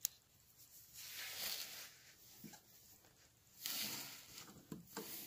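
Faint handling sounds as thread is worked through a sewing machine needle: a light click, two soft rustles each about a second long, and a few small ticks.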